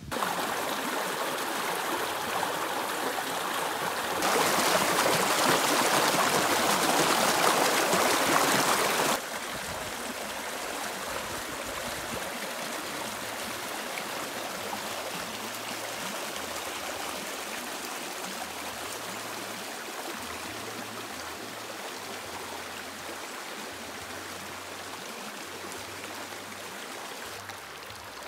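Shallow rocky creek running over stones and small cascades, a steady rush and babble of water. It jumps louder about four seconds in and drops back to a softer, steadier flow about nine seconds in.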